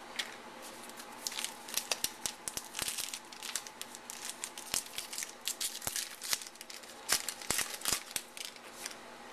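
A foil trading-card pack wrapper (2011 Topps Allen & Ginter) being torn open and crinkled by hand: a long run of irregular sharp crackles.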